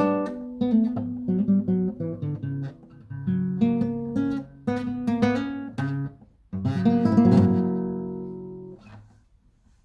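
Solo acoustic guitar playing a picked melody over bass notes, then a strummed closing chord about two-thirds of the way in that rings for about two seconds before it is damped, leaving near silence at the end.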